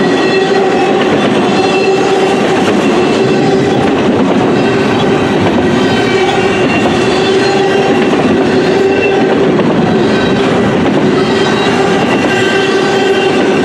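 Double-stack intermodal container well cars of a freight train rolling past: a steady loud rumble and clatter of steel wheels on the rail, with a steady ringing tone over it.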